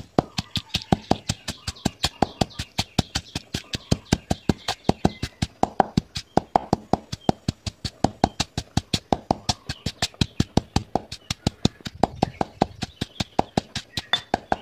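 Pestle pounding dried chillies, salt and garlic into curry paste in a granite mortar: a steady run of sharp knocks, roughly four a second.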